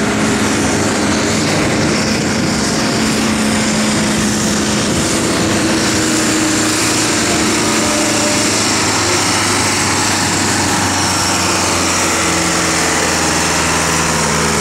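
Fendt farm tractor's diesel engine running flat out and steady under the heavy load of a tractor-pulling sled.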